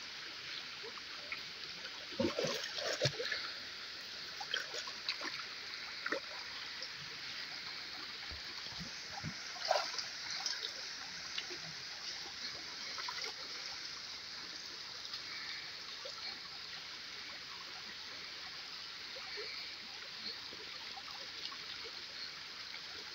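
Shallow river water running steadily over a stony bed, with occasional splashes in the shallows. The loudest splashes come about two to three seconds in and again near ten seconds in.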